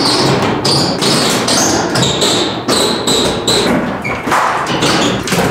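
Old wooden floorboards being pried up with a pry bar and thrown aside: rapid thuds and knocks of wood, one after another.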